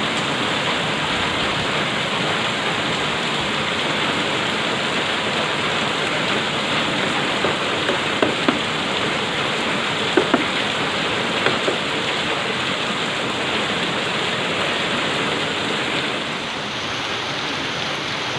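Heavy cyclone rain falling steadily, a dense continuous hiss, with a few brief sharper taps standing out about eight, ten and eleven seconds in. It eases slightly near the end.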